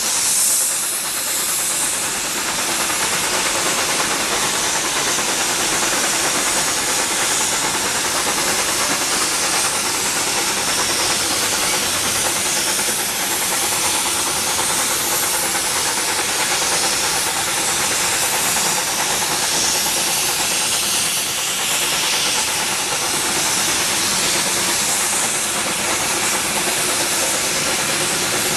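Shay geared steam locomotives working hard as they push a long, heavy passenger train up grade: a steady, loud hiss of exhaust and steam.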